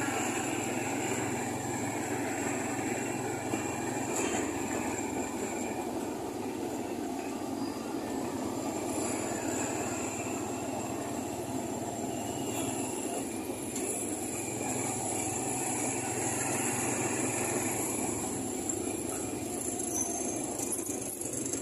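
Steady road and engine noise from a vehicle driving along a paved road in light motorcycle and tricycle traffic, with a thin high whine coming and going.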